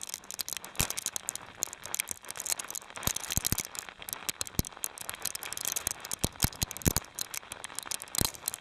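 Ice pellets pelting the camera and clothing in a sleet storm: a dense, irregular rattle of sharp ticks, some much louder than others.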